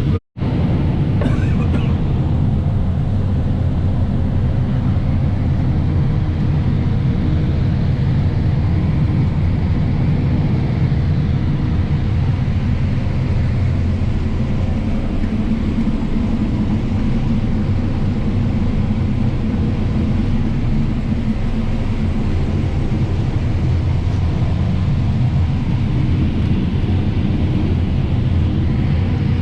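Heavy diesel harvest machinery running steadily under load, a constant low engine drone with no change in pace.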